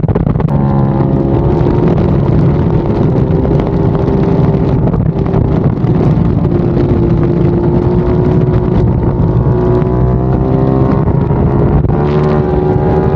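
KTM 890 Duke R's parallel-twin engine pulling hard on a race track, heard from a camera mounted on the bike with wind rush over the microphone. The engine note rises and falls with throttle, with a step in pitch about six seconds in.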